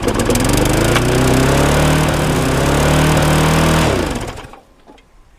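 Briggs & Stratton 450 single-cylinder engine on a McCulloch lawnmower running flat out, its pitch climbing in the first second and holding high, then cutting out and spinning down about four seconds in. It is "revving its head off", overspeeding in a way he puts down to the governor springs.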